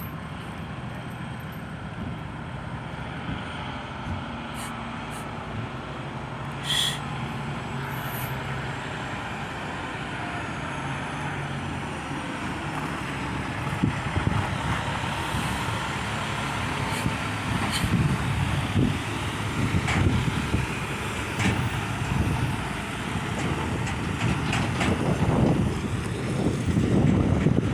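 A heavy dirt-hauling truck's diesel engine running, growing louder and rougher toward the end as it comes closer. There is a brief hiss about seven seconds in.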